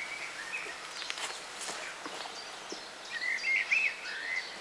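Outdoor birdsong: a songbird singing short chirping phrases, loudest from about three seconds in. Earlier, a couple of footsteps scuff on loose soil as a person steps down into a dug pit.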